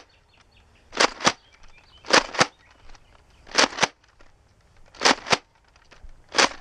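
Nerf foam-dart blaster being pumped and fired over and over, slam-fire style: five pairs of sharp plastic clacks, the pairs about a second and a half apart.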